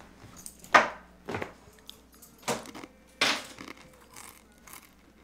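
Handling noises as a shoulder bag and belongings are set down: a handful of short knocks and clatters with rustling, fading to faint ticks near the end.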